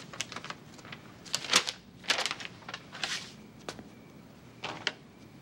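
A folded sheet of paper being handled and unfolded: a few short, soft rustles and crinkles, the loudest about one and a half and three seconds in.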